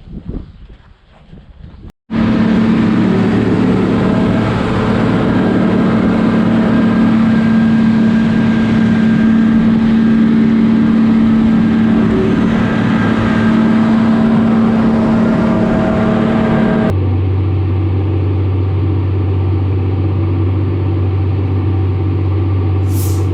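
Tractor engine running steadily and loudly, starting suddenly about two seconds in. Near the end it cuts abruptly to a deeper, lower-pitched engine hum.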